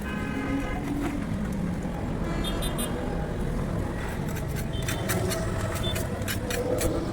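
Road roller's engine running steadily, with a string of short, sharp clicks from about two and a half seconds in.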